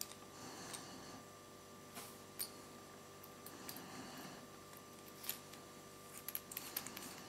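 Small clicks and light scraping of ballpoint pen parts being handled: a refill and spring are slid into a metal barrel and the plastic front section is fitted on. There are a few sharp ticks, the loudest about two and a half and five seconds in, and a quick run of small ticks near the end as the parts are joined.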